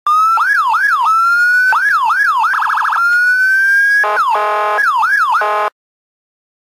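Police siren cycling through its tones: quick up-and-down yelps, slow rising wails and a very fast warble. Near the end a buzzy horn-like tone blasts on and off between yelps, then everything cuts off suddenly about a second before the end.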